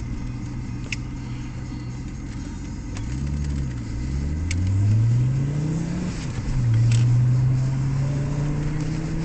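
Audi 100 Quattro Turbo's 2.2-litre MC ten-valve turbocharged five-cylinder engine heard from inside the cabin, accelerating from low speed. The revs climb, drop at an upshift, climb again, drop at a second upshift just past the middle, then pull steadily.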